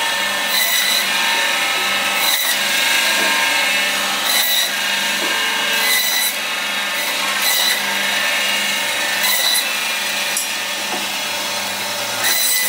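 Meat band saw running steadily, its blade cutting through lamb meat and bone in repeated short rasping passes, one every second or two.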